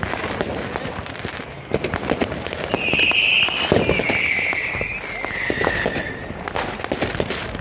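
Firecrackers and fireworks going off all around in rapid, irregular pops and bangs. From about three seconds in, a shrill whistle slowly falls in pitch for some three seconds, like a whistling firework.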